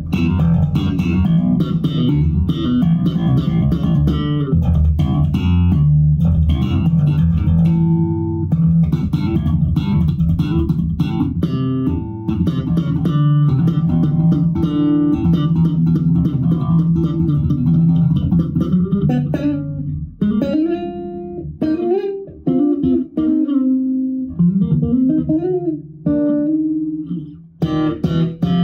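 Six-string Fodera Viceroy electric bass played slap-style through an amplifier, pickups set to single-coil: a busy run of sharp, percussive notes. In the last several seconds the line turns to slower notes with sliding pitch.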